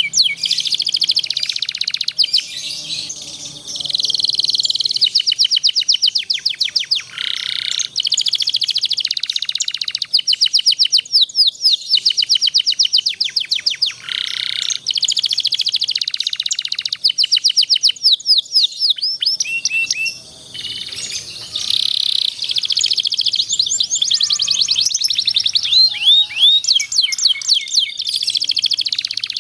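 Canary singing a long song of rapid trills and rolls: fast runs of repeated high notes, phrase after phrase, broken only by short pauses about three seconds in and again about twenty seconds in.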